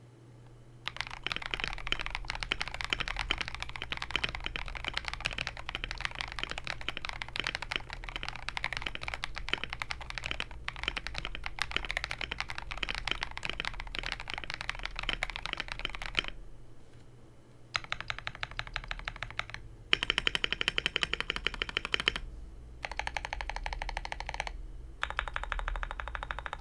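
KBD67 Lite R1 mechanical keyboard with lubed KineticLabs Husky switches, a polycarbonate plate and Akko ASA keycaps being typed on continuously for about fifteen seconds. After a short pause come four shorter runs of rapid, evenly spaced key presses.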